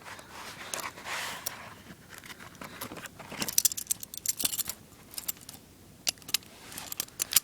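Metal hinged handcuffs clinking and clicking as they are handled, with a short rustle about a second in and a quick run of metallic clicks about three and a half seconds in.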